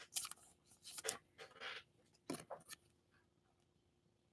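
Faint rustling and sliding of trading cards being handled, a few brief sounds in the first half.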